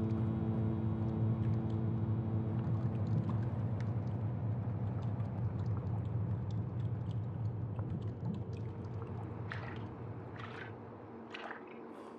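A low, steady ambient drone of several held tones slowly fades away. In the last few seconds a few separate water drips fall.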